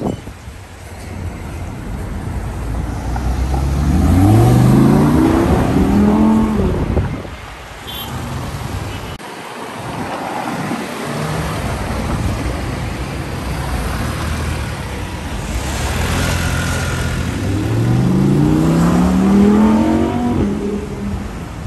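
Audi R8's V10 engine accelerating hard twice, its note climbing for about three seconds each time before falling away, over steady city traffic noise.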